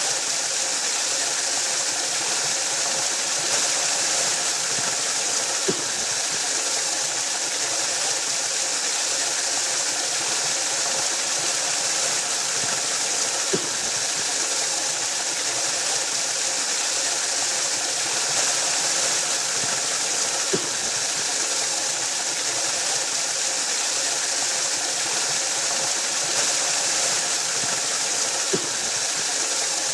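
Waterfall: a steady, hissing rush of falling water, with a faint click about every seven to eight seconds.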